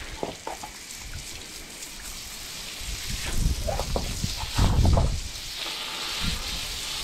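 Water spray from a handheld sprayer hissing steadily onto a horse's wet coat as it is rinsed. A louder dull rumble comes about two-thirds of the way in.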